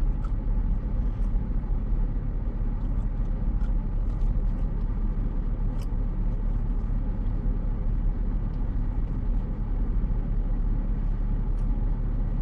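Steady low rumble of a car's engine and road noise heard from inside the cabin while creeping along in slow traffic.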